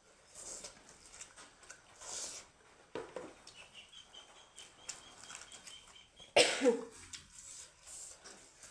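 A person coughs, loudly, about six and a half seconds in, among small clicks and mouth noises from eating.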